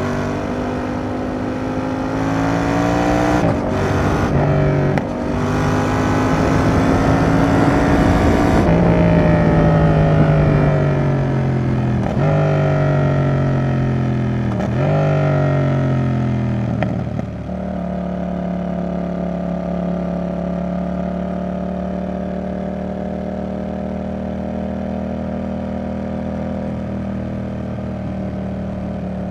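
Yamaha XSR700's 689 cc parallel-twin (CP2) engine through a Roadsitalia Double Fire aftermarket exhaust, heard from the rider's seat. It revs up through the gears with quick upshifts about 3, 5 and 8 seconds in, then slows with two downshifts that jump the revs. For the last dozen seconds it runs at a steady engine speed.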